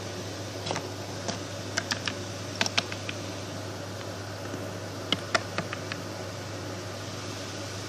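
Light, irregular clicks and taps of small toy figures being handled and set down, over a steady low hum.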